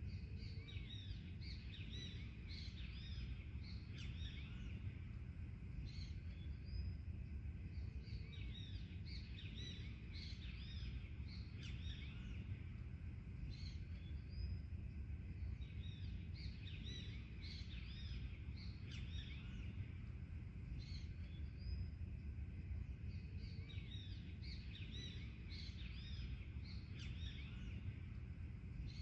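Several forest birds chirping and calling in quick, overlapping short notes, over a steady low background rumble.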